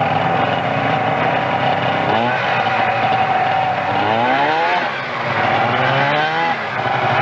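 Two-stroke snowmobile engine buzzing at idle, revved several times with its pitch rising and falling back, about two, four and six seconds in.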